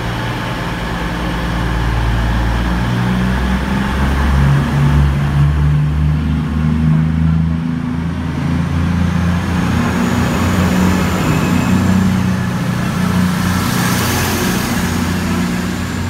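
CrossCountry Voyager diesel-electric train passing close by, its underfloor diesel engines running with a deep, steady drone whose note shifts and climbs a few seconds in. Near the end a hiss of rushing air and wheel noise swells as the last coach goes by.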